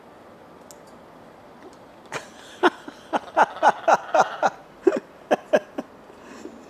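Blue-and-gold macaw chick giving a quick run of about a dozen short calls, each falling in pitch, beginning about two seconds in: begging a parent for food.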